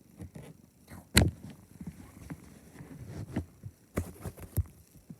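Handling noise: a few scattered taps and knocks, a sharp one about a second in and two more near the end, with soft low thumps between.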